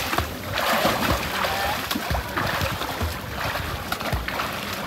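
Water splashing and churning as a swimmer strokes and kicks through a seawater rock pool, with irregular splashes a few times a second.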